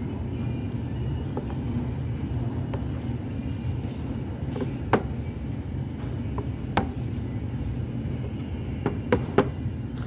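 A spatula cutting down through sticky sapin-sapin, its edge knocking on the bottom of the baking pan: single clicks about halfway through and a quick run of three near the end. A steady low rumble runs underneath.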